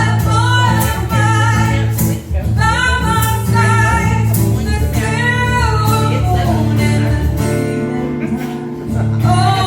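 Live duo performing a song: a voice singing drawn-out phrases over steady acoustic guitar accompaniment.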